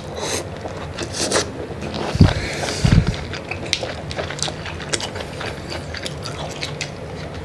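Close-miked eating of mud crab and tiger prawns: shells crunching and cracking in many sharp clicks, with wet chewing and two low thumps about two and three seconds in.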